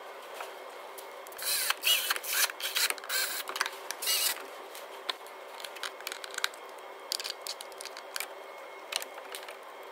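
Plastic timing-belt cover being fitted back onto the engine and its casing bolts run in by hand: a burst of knocks and rattles of plastic and metal early on, then scattered clicks of a small hand tool, over a faint steady hum.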